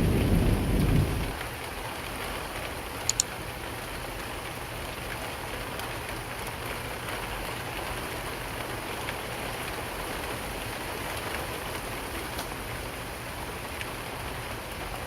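Steady rainfall, an even hiss of falling rain. It opens on the tail of a low thunder rumble that dies away about a second in, and two sharp ticks come close together about three seconds in.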